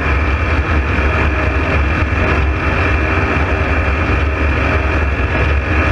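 A loud, steady engine drone with a heavy low rumble and a faint high whine over it.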